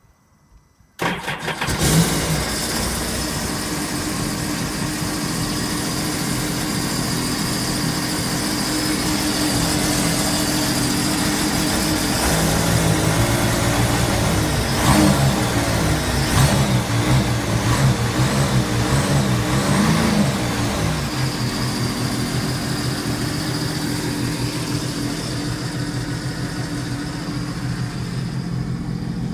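Sea-Doo Wake Pro 215's supercharged three-cylinder Rotax engine starting about a second in, then idling, with the revs rising and falling several times in the middle before settling back to a steady idle. The watercraft is running out of the water on its trailer.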